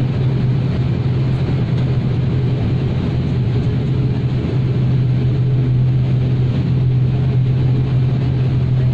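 Propellers and engines of a turboprop airliner running at a steady pitch, heard from inside the cabin: one loud, unchanging hum over a broad rushing noise.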